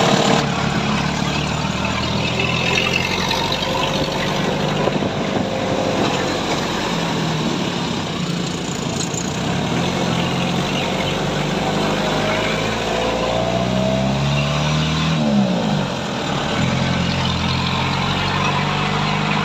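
Off-road jeep engine running while driving, with the revs rising and then falling about 14 to 16 seconds in.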